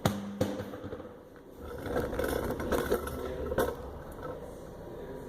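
Metal clicks and clanks, then about two seconds of scraping and rumbling with a few knocks: hand work removing a rear wheel from a car's hub.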